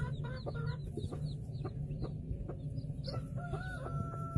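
Newly hatched chicks peeping under a broody hen: many short, falling peeps several times a second over a low steady hum, with a longer held call about three seconds in.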